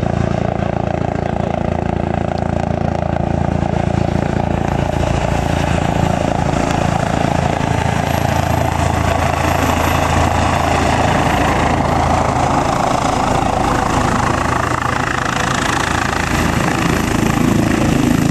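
Airbus H135 air ambulance helicopter flying in low and settling to land, its rotor beat and turbines running loud and steady. A rushing of rotor wash grows stronger midway as it comes down over the sand.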